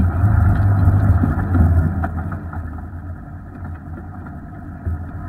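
Off-road vehicle's engine running at low speed as it drives a rocky dirt trail, a steady low drone that is louder for about the first two seconds and then eases off.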